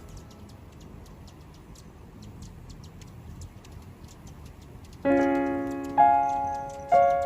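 Background piano music. A quiet stretch with light, even ticking gives way, about five seconds in, to piano chords struck roughly once a second, each ringing and fading.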